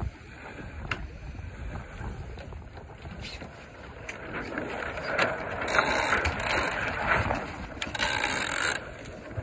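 Sheets and ratchet blocks of an Etchells keelboat during a tack: rope zipping and ratcheting through the blocks as the jib is sheeted in on the new tack, in two loud bursts about six and eight seconds in.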